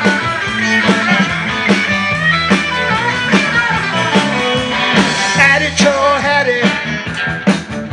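Rock and roll band playing an instrumental stretch: electric guitar over bass and a steady drum beat.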